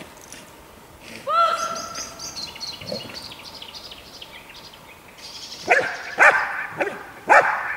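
Belgian Malinois barking at the helper in steady short barks, about two a second, starting a little past halfway through: the guarding bark after releasing the sleeve in IPO protection work. About a second in there is a single drawn-out high call.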